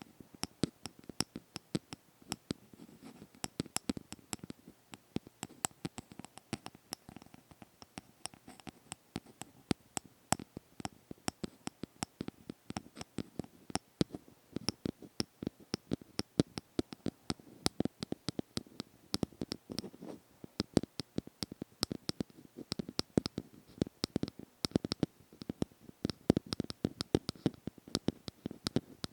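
Close-up ASMR tapping and scratching: rapid, irregular sharp clicks, several a second, over light scratching.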